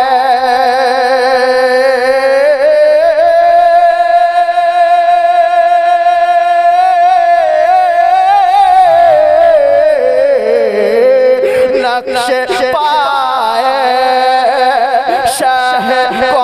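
A man singing an Urdu naat solo, drawing out a long held note with a slight wobble. About nine seconds in it winds down in an ornamented run and carries on along a lower, ornamented line.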